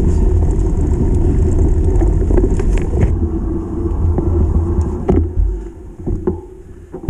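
Mountain bike riding down a rough dirt trail, heard on the rider's camera as a loud, steady low rumble of wind buffeting and trail rattle. It drops off sharply about five and a half seconds in, leaving a few light clicks and knocks.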